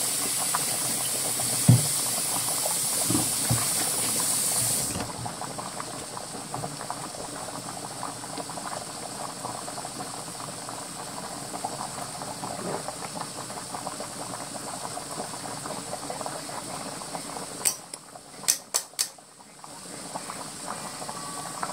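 Stovetop cooking: ground beef crackling and sizzling in a frying pan, with a pot of pasta water boiling beside it; the high hiss drops sharply about five seconds in. Near the end, four or five sharp clicks in quick succession.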